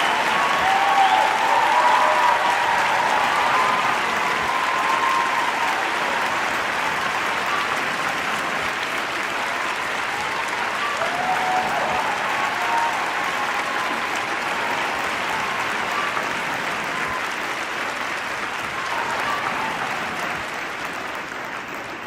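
A large crowd cheering and applauding, a dense wash of clapping with scattered shouts and whoops, slowly dying down toward the end.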